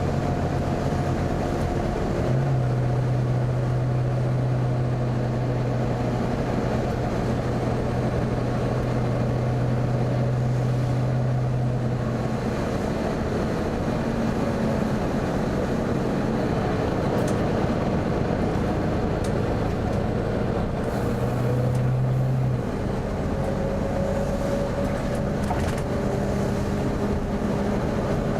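Volvo B9TL double-deck bus running with its loud cooling fan whirring over the engine: a steady mechanical din. A strong low hum comes in about two seconds in and drops out about ten seconds later, then returns briefly around twenty seconds in.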